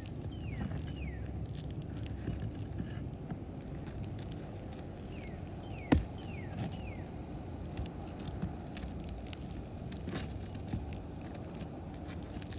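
Steel shingle snake scraping and clicking under an asphalt shingle as it is worked against roofing nails, with one sharp knock about six seconds in.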